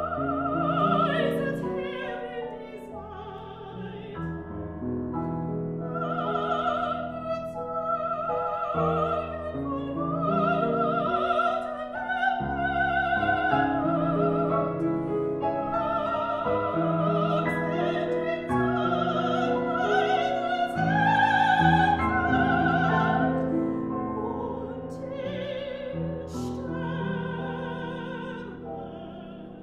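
Classical soprano singing a German art song with wide vibrato, accompanied by grand piano; the music grows softer near the end.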